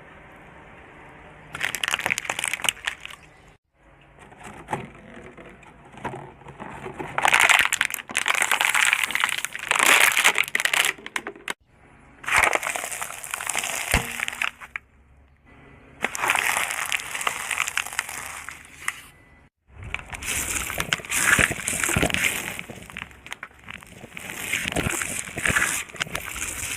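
Things being crushed, crunching and crackling, in several separate bouts a few seconds long, each breaking off suddenly.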